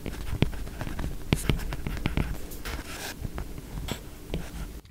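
Stylus tapping and scratching on a tablet screen as words are handwritten: an irregular run of sharp ticks with a few short scratchy strokes.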